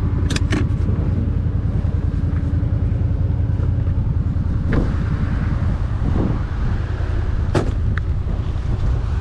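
Off-road vehicle's engine running steadily as it drives a trail, with a few sharp knocks along the way.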